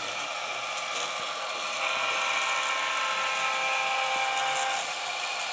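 Electric motors and gearing of a model train's two diesel locomotives whining steadily as the train rolls by, with wheels running on the rails. The whine grows louder about two seconds in and eases off a little near the end.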